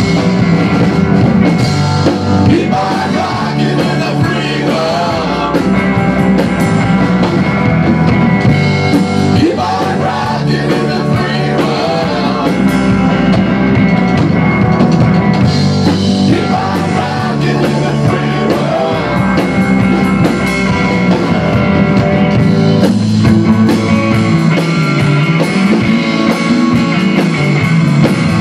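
Rock band playing live: distorted electric guitar, electric bass and a Tama drum kit, with some singing.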